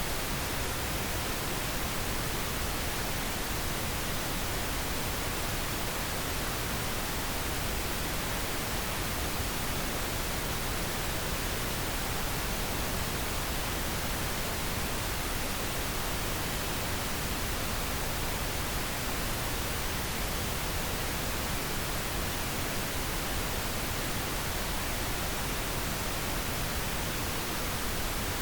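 Steady pink noise: an even, unbroken hiss, generated as a sleep aid.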